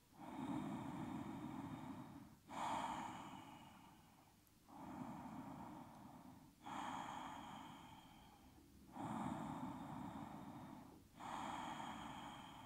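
A person's slow, deep breathing, soft and audible: inhales and exhales of about two seconds each follow one another with barely a pause, each starting suddenly and tailing off.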